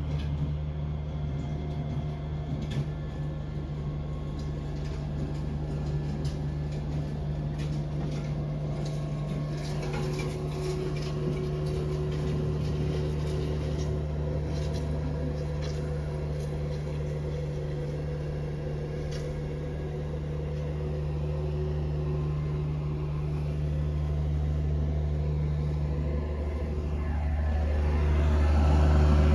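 A machine running with a steady low hum, growing louder near the end.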